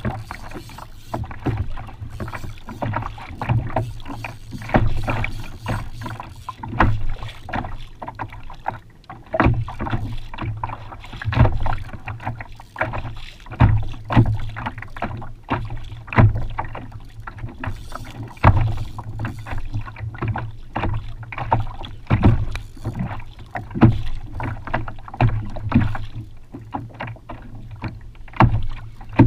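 Water slapping against a kayak's hull on a choppy sea, with irregular knocks and splashes at no steady rhythm.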